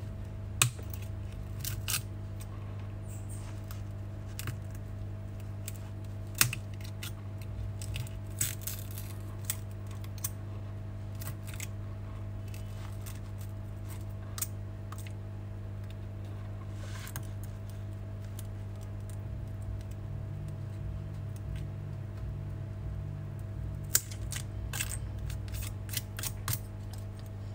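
Scattered sharp clicks and ticks of broken glass being chipped off an iPhone X's back, over a steady low hum.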